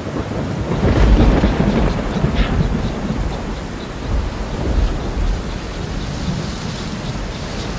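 Simulated rainstorm: a steady hiss of falling water with a deep low rumble, loudest about a second in.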